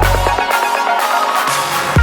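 Electronic background music. The heavy bass drops out about half a second in, leaving higher synth notes, and the full beat returns at the very end.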